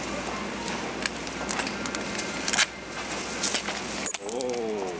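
Small coins clinking as they are handled, then spilling and clattering onto a hard floor about three and a half seconds in, with several coins ringing on high, thin tones for a second or more.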